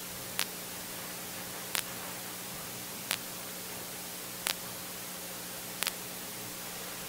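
Steady hiss with a faint low hum from the recording chain, broken by a short sharp click at very regular intervals, about one every second and a half.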